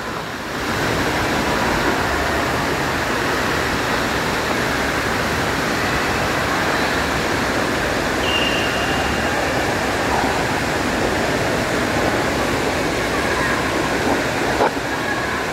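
Steady rush of water in an indoor water-park pool: splashing from swimmers and water pouring from the play fountains and waterfalls.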